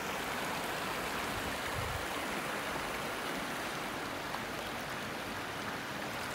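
Shallow river flowing over stones: a steady rush and ripple of moving water.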